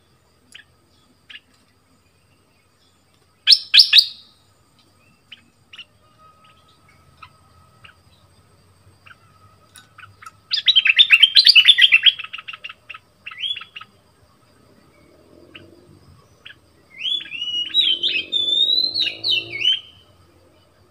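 Caged stripe-throated bulbul calling: a short sharp burst of notes about three seconds in, a fast chattering run of notes a little before midway, and a warbling phrase of rising and falling whistles near the end.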